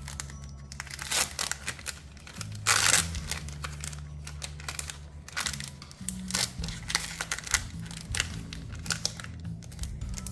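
Foil booster-pack wrapper crinkling and being torn open, in irregular crackles with a louder rip about three seconds in, over soft background music.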